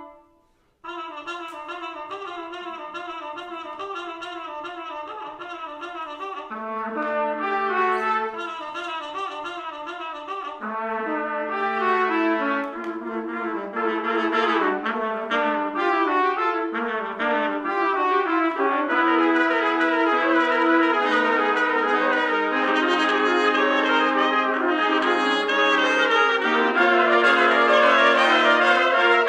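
Trumpet ensemble playing in parts: a held chord cuts off, and after a short pause the players start a new passage. Lower parts join about six seconds in, and the music grows louder toward the end.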